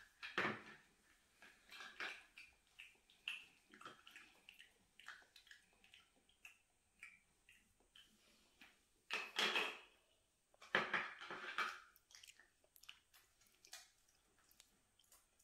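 A child pretend-eating plastic toy French fries, with faint scattered clicks and small mouth sounds. Two louder ones come about nine and eleven seconds in.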